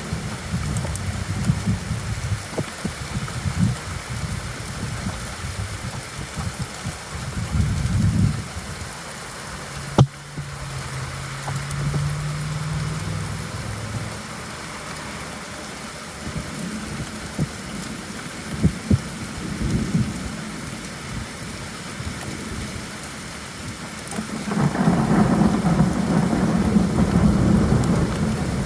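Steady rain falling, with low thunder rumbling through it. The rumbles ease off about eight seconds in and swell up louder near the end. A single sharp crack comes about ten seconds in.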